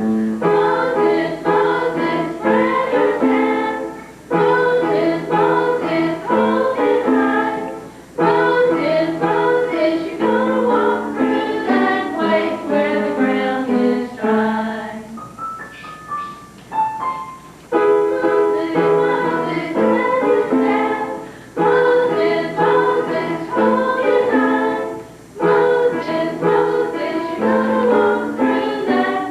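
A song with keyboard accompaniment and group singing, in phrases of about four seconds with short breaks between them. About halfway through the music drops away briefly and a single tone slides up and down.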